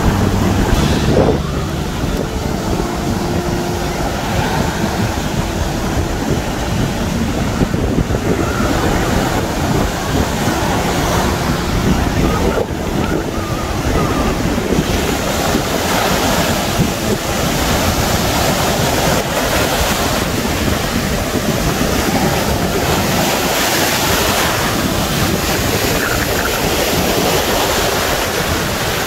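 Rough surf breaking and washing up onto a sandy beach: a steady rushing wash of waves, with wind buffeting the microphone.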